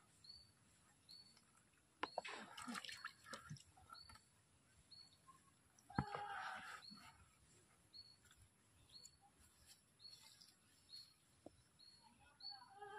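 Faint, repeated short high chirps from a bird, about one every second. A sharp knock comes about two seconds in and another about six seconds in, each followed by a brief noisy rustle.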